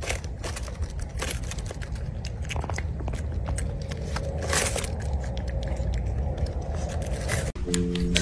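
A puppy biting and chewing a crisp napa cabbage leaf: a run of irregular crunches. Near the end it cuts to light mallet-percussion music.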